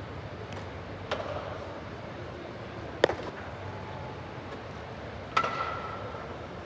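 Three sharp knocks about two seconds apart from baseballs being hit and fielded in infield practice, the middle one the loudest. The last one rings on briefly.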